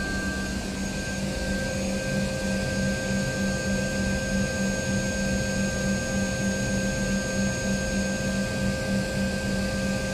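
Steady whirring machinery noise in an Embraer E-Jet cockpit, with a low hum and several constant high whine tones. The APU is running and the electric hydraulic pumps have just been switched on, pressurising the hydraulic systems.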